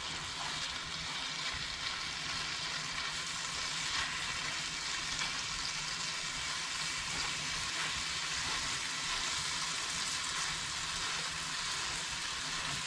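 Beyond Beef plant-based ground meat sizzling steadily in a nonstick pan over low heat, frying in its own juices with no oil, while a wooden spatula mashes and breaks it into crumbles.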